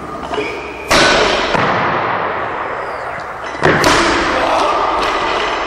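Two loud thuds about three seconds apart as a weightlifter catches a loaded barbell with bumper plates, once about a second in and again near four seconds in, as he gets the bar overhead. Each time his feet stamp on the platform and the bar and plates clank, followed by a rattling, fading tail.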